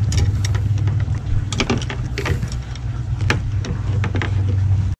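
A steady low mechanical hum with scattered sharp clicks and knocks, all stopping abruptly at the end.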